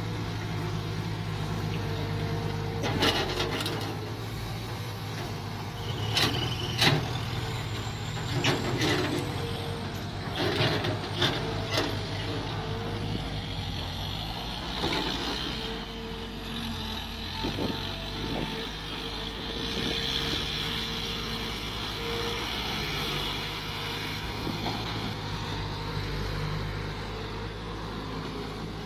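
Mini excavator engine running steadily while digging, with sharp knocks and scrapes from the bucket, mostly in the first half.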